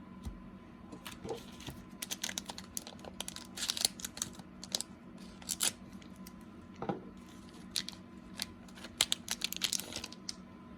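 Rustling, crinkling and clicking of 1990-91 Skybox basketball cards and their packaging being handled and flipped through by hand, in irregular quick clusters.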